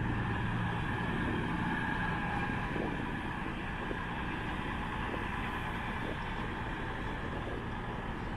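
Class 221 Voyager diesel-electric train running slowly through the station throat: a steady diesel engine drone with rail rumble, slowly fading.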